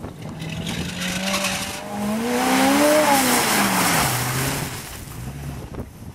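Mud truck's engine revving hard, its pitch climbing to a peak about three seconds in and dropping back, over a loud rush of spinning tyres and mud.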